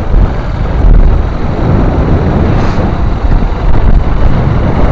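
Wind buffeting on the microphone of a camera riding on a moving motorcycle, a loud steady low rumble, with road and vehicle noise under it.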